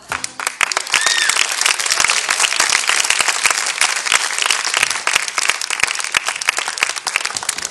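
Studio audience applauding: dense, steady clapping that takes over just as the music stops, with one short rising-and-falling whoop about a second in.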